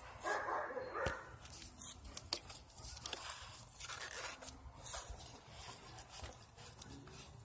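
Slip-on motorcycle exhaust muffler being worked loose and pulled off its link pipe by hand: scattered metallic clicks and scraping, the roughest scraping near the start and about a second in. The engine is not running.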